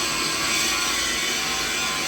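Steady, unchanging machinery noise, a constant hum under a dense whirring hiss, used as a mixed-frequency tinnitus masking sound.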